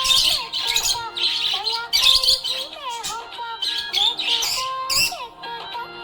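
Budgerigar chirping in several quick, high bursts over background music with a gliding melodic line.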